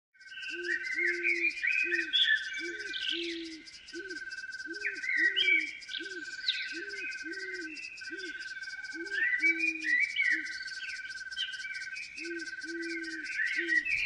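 Nature ambience of birds chirping over a steady, pulsing insect trill, with a low call repeating about twice a second.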